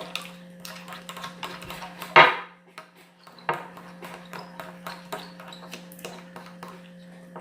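Utensils clicking and tapping against bowls while slime is stirred, in irregular small knocks with one louder knock about two seconds in and another a second or so later.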